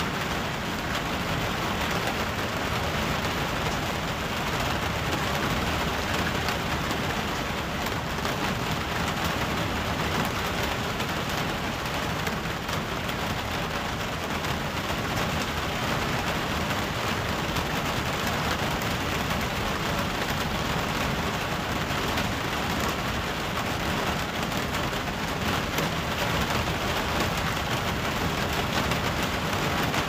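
Rain falling on sheet metal, a dense, steady patter with no let-up.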